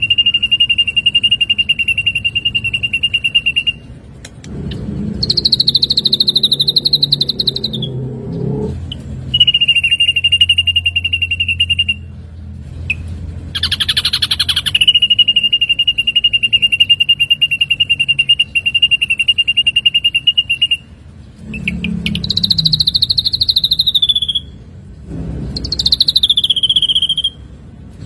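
Ashy drongo singing: long, rapid trills held on one even pitch for several seconds at a time, alternating with shorter, higher trilled phrases that drop in pitch at their ends.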